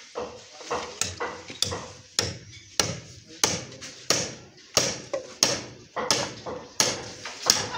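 Sledgehammer blows, about a dozen evenly spaced strikes at roughly three every two seconds, each a sharp knock with a short ring after it.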